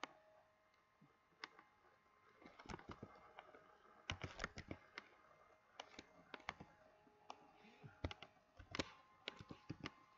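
Faint, irregular keystrokes on a computer keyboard while typing code, in uneven clusters of clicks.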